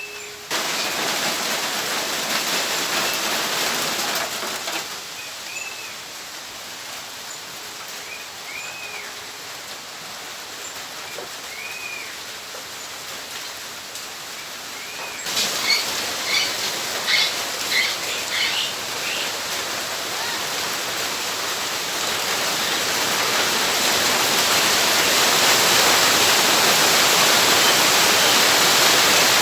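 Nature soundscape: a steady hiss of running water with birds calling. A short arched chirp repeats every few seconds, then a burst of quick chirps comes about halfway through, and the water grows louder toward the end.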